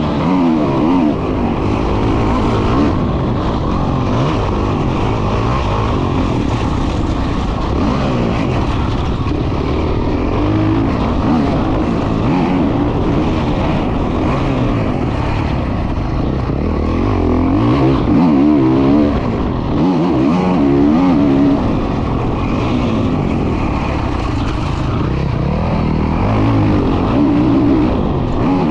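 Honda CRF450 dirt bike's single-cylinder four-stroke engine ridden hard, revving up and dropping back again and again with the throttle.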